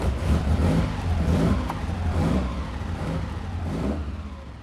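Car engine fed by triple Weber carburettors running on choke just after starting, its revs rising and falling unevenly, then dropping away near the end.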